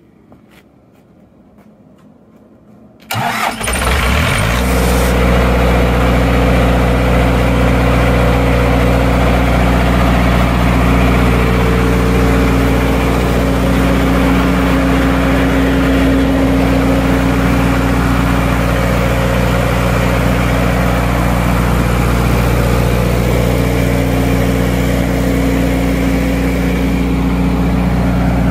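A few faint clicks, then about three seconds in the John Deere diesel engine of a 40 kW generator set is cranked and catches almost at once. It settles into a steady, even run at the set's governed speed of about 1800 rpm for 60 Hz output.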